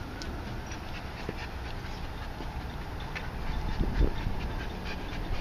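German shepherd-type explosive-detection dog panting and sniffing as it works along the trailers, with a soft thump about four seconds in.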